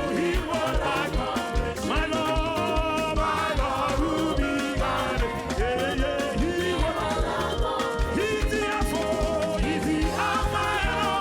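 Upbeat Ghanaian gospel praise band music with a steady, driving drum beat.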